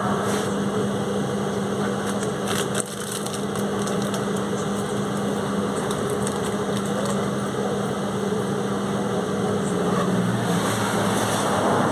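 Volkswagen 17.230 OD bus's diesel engine running with a steady hum, with a few rattles and clicks and a brief drop in level about three seconds in, and a slight change in engine pitch near the end.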